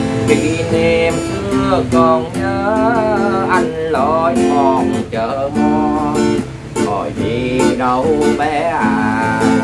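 Budget student acoustic guitar with a spruce top and laminated back, strummed and picked through a slow chord accompaniment. A man's voice carries a wavering melody over it.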